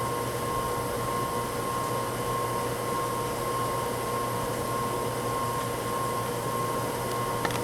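Steady mechanical hum with a faint steady whine, typical of running shop machinery, and a single click near the end.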